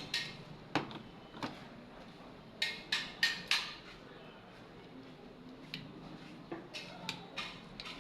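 Sharp clicks and light knocks of a small angle grinder's plastic housing parts being handled and fitted back together, the motor not running. There are a few clicks near the start, a quick run of four about three seconds in, and a few more near the end.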